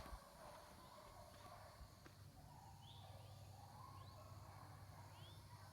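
Faint outdoor ambience with a few short, high, rising bird chirps spaced about a second apart, starting around the middle.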